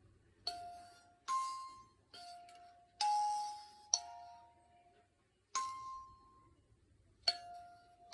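Handmade kalimba plucked slowly one note at a time: seven clear ringing tones, each fading out before the next, with a longer pause about two thirds of the way through.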